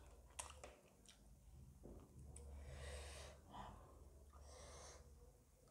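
Faint eating sounds from a person chewing: a few soft clicks in the first couple of seconds, then several breaths through the nose.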